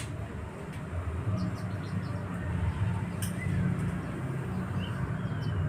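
Short high chirps and calls of white-eyes, scattered through, with a thin gliding call near the end, over a steady low rumble.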